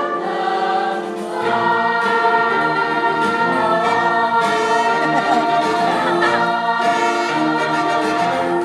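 Musical-theatre cast singing together in chorus, holding long notes; a lower part joins about a second and a half in.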